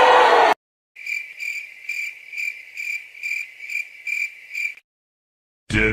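Crickets sound effect: a high cricket chirping, about two and a half chirps a second, that stops abruptly after about four seconds, the stock cue for an awkward silence. Before it, a crowd noise cuts off suddenly in the first half second, and another effect starts right at the end.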